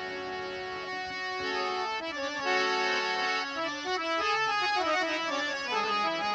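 Harmonium playing an instrumental interlude of a Gujarati devotional bhajan: a melody of held reedy notes, with a quick descending run of notes about four to five seconds in.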